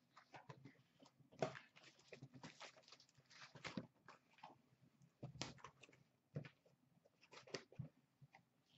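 Stacked cardboard card boxes being lifted, carried and set down on a glass counter: quiet, irregular knocks and scuffs of cardboard on cardboard and glass, with some rustling.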